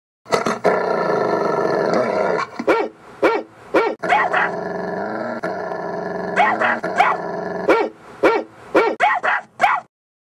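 Dog growling steadily, broken by about a dozen short barks that come in loose clusters of two to four.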